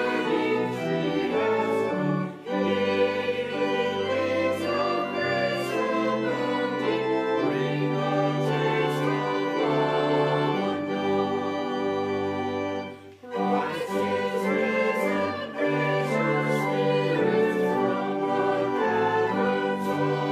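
A church choir singing a hymn with pipe organ accompaniment, with brief breaks between phrases about two seconds in and again about thirteen seconds in.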